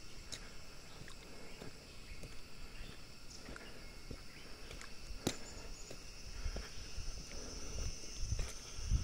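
Footsteps of someone walking over a leaf-littered forest trail, with heavier thumps in the last few seconds, over a steady high-pitched insect chorus. One sharp click about five seconds in.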